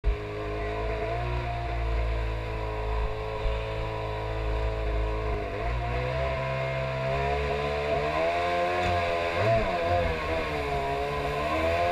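Small boat's engine running under way, its pitch steady at first, then rising and falling several times in the second half as the revs change.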